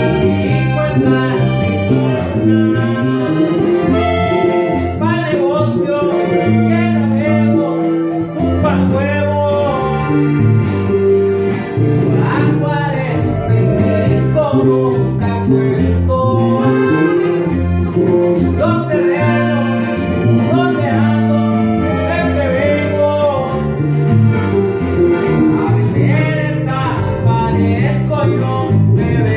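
Acoustic guitar and accordion played together in a Mexican regional-style song, with a man singing over them.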